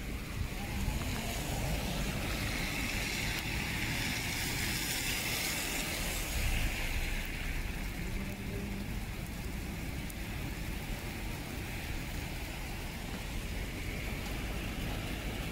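Small hail and rain falling on an asphalt street: a steady hiss over a low rumble, the hiss strongest in the first half.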